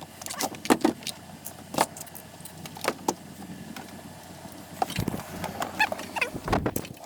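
Irregular metallic clicks and knocks of hand tools and hardware being worked while a bow trolling motor is taken off a boat, with a few sharp knocks in the first three seconds and a short run of squeaky clicks near the end.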